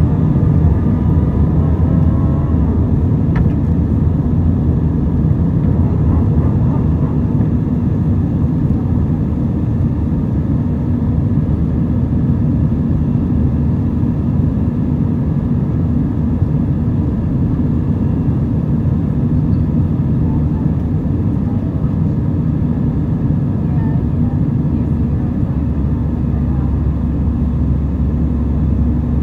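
Airbus A320 cabin noise during the climb after takeoff, heard inside the cabin over the wing: a steady engine rumble and airflow noise.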